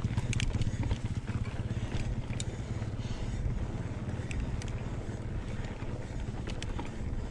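Mountain bike rolling over a dirt trail: a steady low rumble from the tyres and wind on the camera, with a few sharp clicks and rattles from the bike over bumps.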